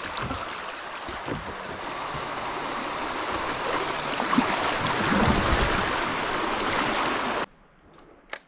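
Rushing water of a shallow river riffle, running fast around a kayak's hull as it drifts down through the current. The water cuts off suddenly about seven and a half seconds in, leaving a quiet stretch with a single sharp click near the end.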